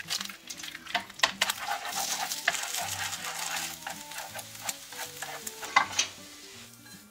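Egg sizzling in a hot nonstick frying pan while it is scrambled with wooden chopsticks: a frying hiss with quick taps and scrapes of the sticks against the pan. The hiss is heaviest in the first few seconds and thins out toward the end.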